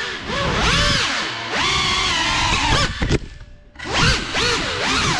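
Geprc Cinelog 35 ducted cinewhoop drone's brushless motors and propellers whining as they fly, the pitch rising and falling with every throttle punch and turn. About three seconds in the throttle is cut and the whine drops away almost to nothing for under a second, then surges back up. Heard close from the GoPro mounted on the frame.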